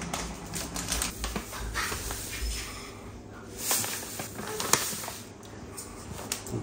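Idli rava and urad dal being scooped out by the cup and poured: a soft hiss and patter of dry grains, with light clicks of the cup and container and a brief louder rush of pouring about three and a half seconds in.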